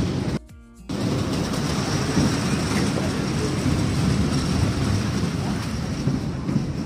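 Dragon train amusement ride running along its track, heard from on board as a steady low rumble. The sound drops out briefly about half a second in.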